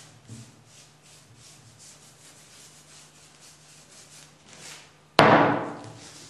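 A brush scrubbing varnish into a woven cane chair seat in short repeated strokes, then about five seconds in a single loud wooden knock as the seat is turned and handled on the table, ringing down over about a second.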